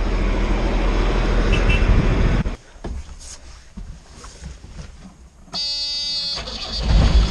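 Loud engine rumble that drops away about two and a half seconds in. About five and a half seconds in, a telehandler's cab warning buzzer sounds as one steady tone for about a second, then the engine noise rises loud again near the end.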